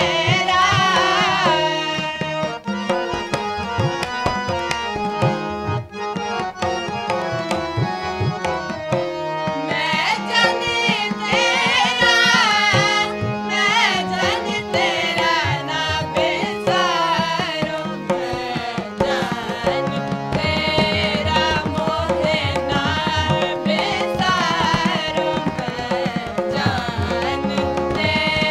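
Sikh kirtan: voices singing to the sustained chords of two harmoniums, with tabla playing a running rhythm underneath.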